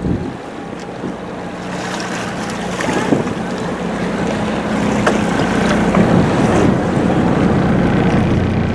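Boat engine running with a steady low hum, under strong wind on the microphone and sea wash, with a couple of short knocks.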